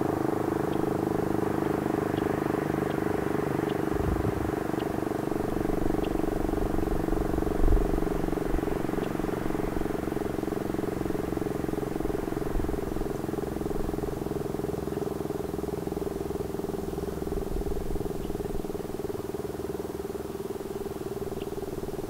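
Federal Signal STL-10 outdoor warning siren sounding its steady full-alert tone: one held pitch that wavers slightly, growing gradually quieter toward the end.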